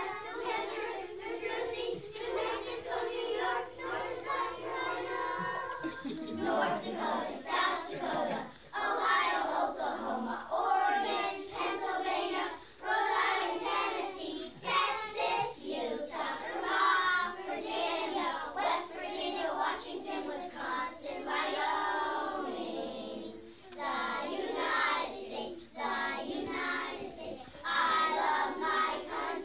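Group of young children singing a song together, continuously.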